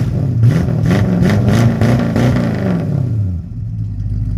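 Ford 351 Windsor V8 in a 1976 Ford Torino, breathing through true dual exhaust with Paradox Signature Series mufflers, revved once. Engine speed climbs over about two seconds, then falls back to idle about three and a half seconds in.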